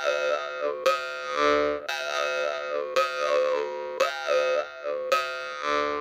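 Sergey Pyzhov's jaw harp (vargan) played with slow plucks about once a second. Each pluck rings on as a steady drone with a clear bell-like tone, and the overtones shift as the player's mouth changes shape.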